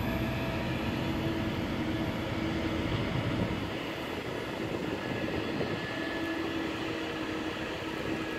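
Steady city street traffic noise: a low rumble with a steady engine hum.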